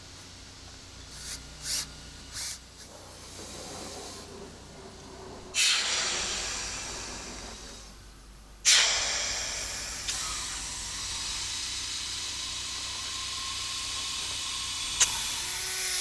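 A few faint clicks, then a sudden rushing hiss from the pressurised pipe-lining rig's chamber and hoses about five seconds in, fading away, then starting again abruptly about three seconds later and running steadily: the rig being pressurised to set the bladder inside the new liner.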